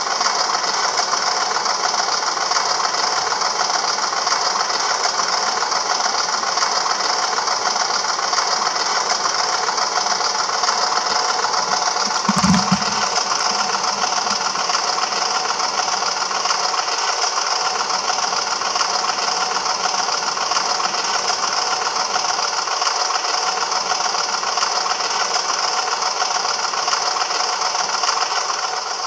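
A DCC sound decoder in a Bachmann model of diesel locomotive 10001 plays its diesel engine sound through the model's small speaker: steady running with a rattle. A brief low thump comes a little before halfway through.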